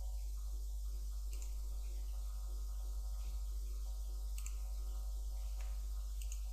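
A few computer mouse clicks, spaced a couple of seconds apart, over a steady low electrical hum from the recording.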